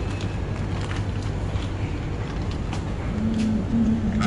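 Steady low hum and rumble of a sandwich shop's refrigerated counters and fans, with scattered light clicks and clinks of tongs and metal trays. A low wavering tone joins about three seconds in.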